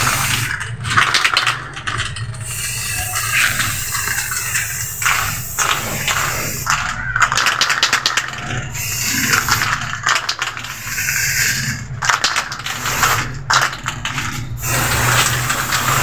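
Aerosol spray-paint can hissing in long bursts, stopping briefly every second or two as the nozzle is released and pressed again. A low steady hum runs underneath.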